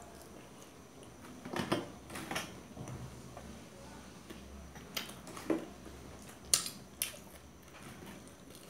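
Metal forks clinking and scraping against steel plates as two people eat fried momos: a handful of sharp, irregular clinks with quieter chewing between them.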